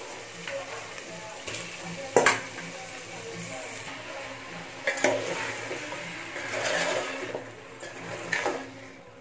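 Raw chicken pieces being stirred with a steel spoon into frying onion-tomato masala in an aluminium pot, with a light sizzle and scraping. Sharp knocks of the spoon or the chicken against the pot come about two seconds in, about five seconds in and near the end, the first the loudest.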